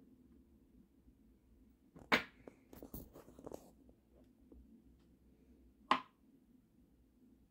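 Handling noise from a phone camera held to a microscope eyepiece being moved: a sharp knock about two seconds in, a scatter of small clicks and rubs over the next second and a half, and another sharp knock about six seconds in, over a faint steady hum.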